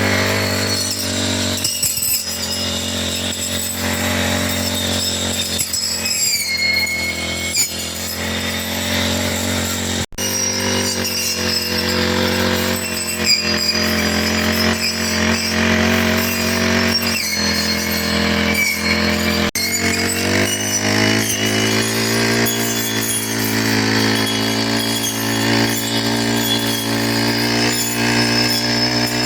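Four-stroke brush cutter engine running steadily while cutting grass, with two brief dropouts.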